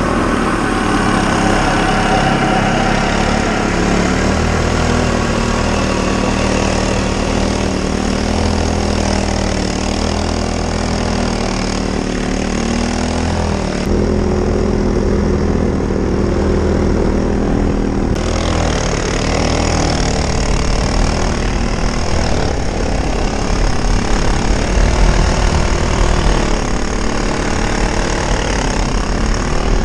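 Irbis Dingo T150 snowmobile engine running steadily while riding through snow, its pitch shifting now and then with the throttle, and a little louder late on.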